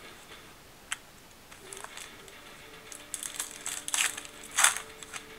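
Trading cards being handled and flipped through by hand, with a single sharp click about a second in, then crisp rustling and crinkling of cards and plastic that comes in several quick bursts over the last two seconds.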